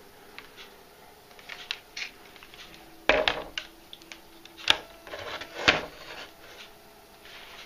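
Handling noises from RC boat gear: scattered light clicks and knocks, with three sharper knocks about three, four and a half and five and a half seconds in.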